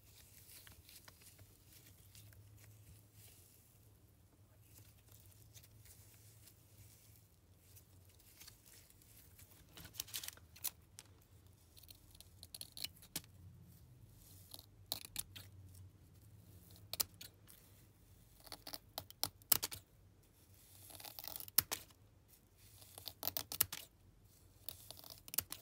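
Scissors snipping through soft squishy filling of paper clay and sand-like slime, with faint handling and crackling of the material: scattered sharp clicks and snips, more frequent in the second half.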